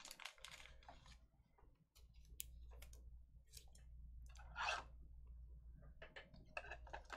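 Faint scattered clicks and taps with a brief rustle a little past halfway, over a low steady hum.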